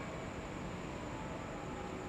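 Night chorus of crickets, a continuous high trill, with faint calls of black-spectacled toads over a steady low background rumble.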